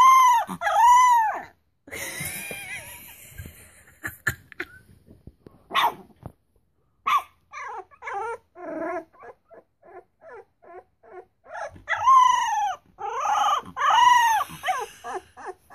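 Three-week-old puppies whining and yelping in a series of short cries that rise and fall in pitch: a loud run at the start, quieter, shorter squeaks in the middle, and another loud run about twelve seconds in.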